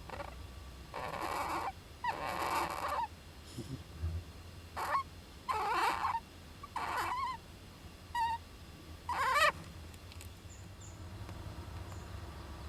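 A young Japanese giant flying squirrel calling, about seven short calls in all. The first two are longer and harsh and hissy; the rest, after about five seconds in, are brief wavering squeaky cries.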